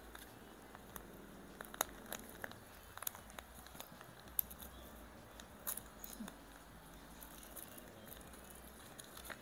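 Plastic sachet of powdered peel-off mask being handled and pulled open: faint crinkling with scattered sharp crackles.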